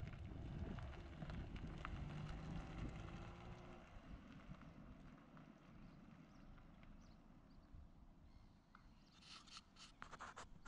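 Faint outdoor ambience: a low wind rumble with a faint engine-like hum, fading to near silence after about four seconds, then a few short clicks near the end.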